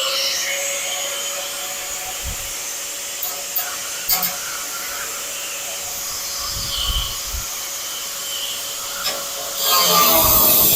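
Cut-off wheel tool spinning at speed with a steady whine, lightly working the sheet metal of a car's quarter panel, with a few small clicks. Near the end the wheel bites into the metal again and the cutting grows louder.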